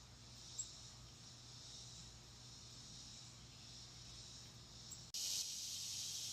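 Steady high-pitched chorus of insects, swelling and fading a little, with a brief high chip about half a second in. About five seconds in the chorus suddenly steps up louder.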